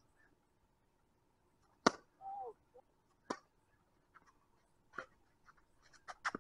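Tennis ball struck by rackets in a baseline rally: four sharp pops about a second and a half apart, the first the loudest.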